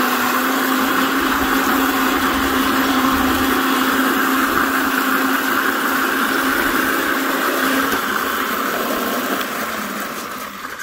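McLane reel mower driven by a 60 V brushless DC motor, its reel spinning and cutting short lawn grass under light load: a steady whirr with a steady hum. The hum stops about eight seconds in and the whirr fades away near the end as the mower winds down.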